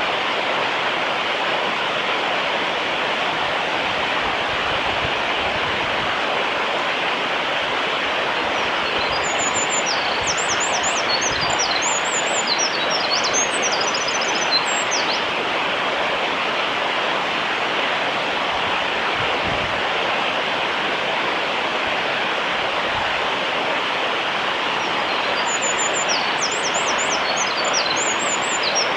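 Eurasian wren singing two long songs of rapid high trills and notes, the first starting about a third of the way in and lasting about six seconds, the second near the end. Both sound over a steady, louder rush of flowing water.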